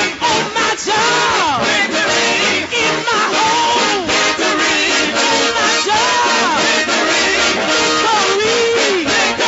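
Loud live church praise music from a band, steady and full, with a melody line swooping up and down in pitch.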